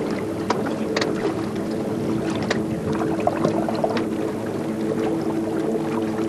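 Water splashing and lapping around a sea kayak's hull as it moves through choppy sea, with scattered small splashes. Under it runs a steady low hum of several held tones.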